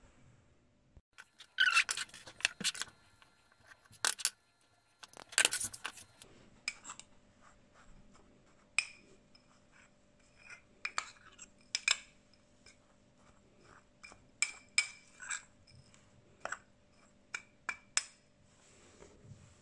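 A metal spoon clinking and scraping against a small ceramic bowl as dry powder (ground fenugreek and crushed camphor) is stirred. The loudest knocks, with brief ringing, come in the first few seconds, followed by a run of lighter, irregular clinks.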